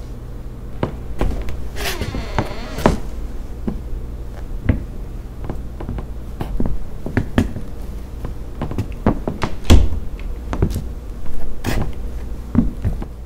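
Footsteps and scattered knocks and thumps on a wooden parquet floor over a steady low hum, with a door opening about two seconds in.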